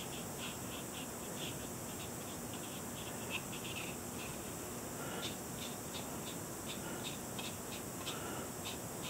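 Faint, uneven light ticks and scratches of a small paintbrush dabbing on watercolour paper, two or three a second, over a steady room hiss.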